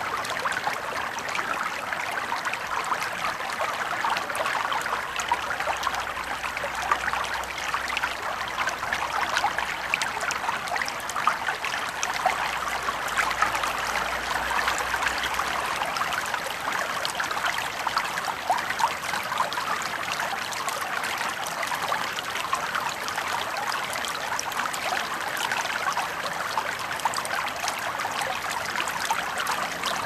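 Stream water running over rocks: a steady rushing and babbling splash with no let-up.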